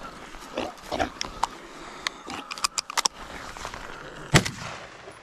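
Single rifle shot about four seconds in, the loudest sound, with a short echo after it. Before it come short clicks and snaps, with animal grunting.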